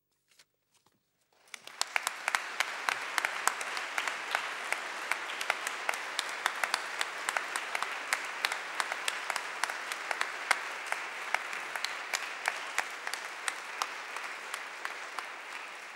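Congregation applauding, beginning after a second or so of quiet and continuing as a steady spatter of many claps, easing slightly near the end.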